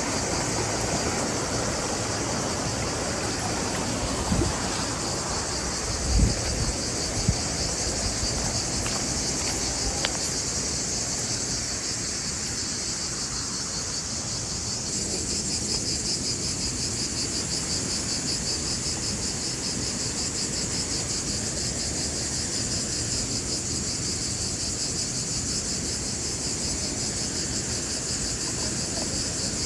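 Steady chorus of insects, a continuous high trill with a fine rapid pulse. A few soft low knocks come between about four and seven seconds in.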